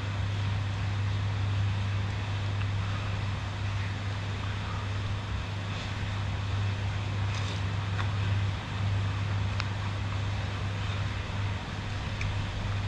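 Steady hiss of heavy rain with a constant low hum underneath, and a few light clicks of a spoon against a glass bowl about seven to ten seconds in.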